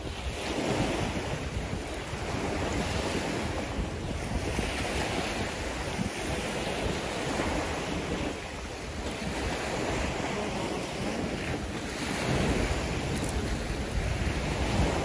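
Small waves washing onto a sandy beach, swelling and fading every few seconds, with wind rumbling on the microphone.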